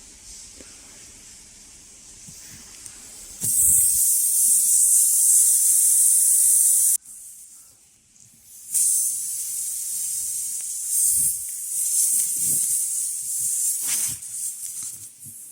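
Pressurised air hissing in two long bursts, the first cut off abruptly after about three seconds, the second lasting about five seconds and tailing off, with a few faint knocks between them.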